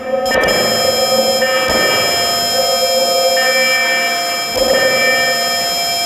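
Analog modular synthesizer playing a buzzy, sustained drone: a chord of several steady tones held together over a grainy, crackling noise texture. The sound swells slightly twice, a couple of seconds in and again past the middle.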